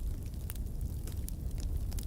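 Wood fire burning in a fireplace: a steady low rumble with scattered sharp crackles and pops, the loudest about half a second in and near the end.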